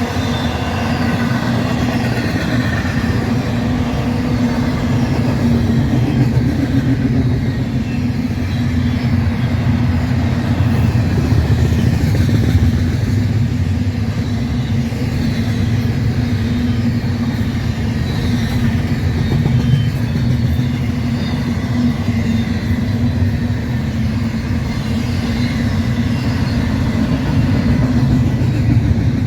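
Intermodal freight train's cars rolling past at speed: a loud, steady rumble of steel wheels on rail.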